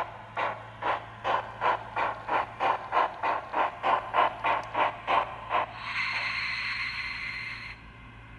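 Sound module of a Liliput model of an ÖBB class 52 steam locomotive playing steam exhaust chuffs. The chuffs quicken from about two to three a second. They stop about six seconds in, and a steady steam hiss follows for about two seconds, then cuts off. A steady low hum from the model runs underneath.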